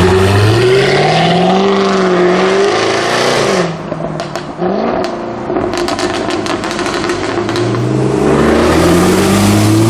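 Jaguar F-Type R's supercharged 5.0-litre V8 revving up under acceleration, then lifting off into a rapid series of exhaust pops and crackles on the overrun. Near the end the engine note climbs again under power.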